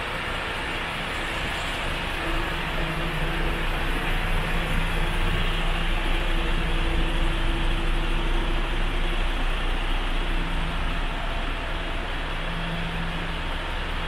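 Diesel engine of a MAN TGX 26.440 tractor unit running at a steady speed, a hum that swells a little through the middle and settles back near the end.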